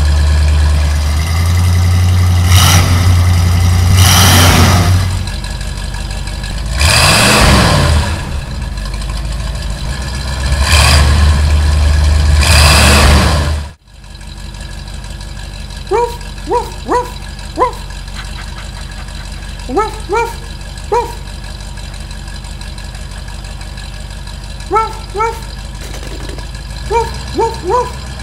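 Cartoon dump truck engine sound effect: a low engine drone with several loud revs over the first half. It cuts off abruptly about halfway through, and a quieter steady idle carries on under short rising chirps in twos and threes.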